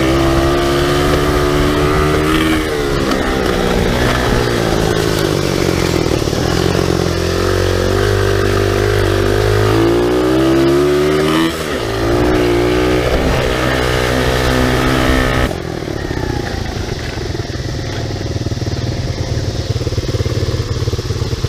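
SSR 125cc pit bike's single-cylinder four-stroke engine being ridden hard, revving up and down through the gears with a brief throttle-off a little past halfway. About three-quarters of the way through it drops to a quieter, steady idle as the bike stops.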